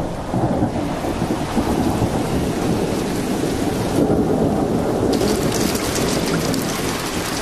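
Thunderstorm sound effects: a continuous low rumble of thunder under rain, joined from about five seconds in by a sharper crackle of falling drops.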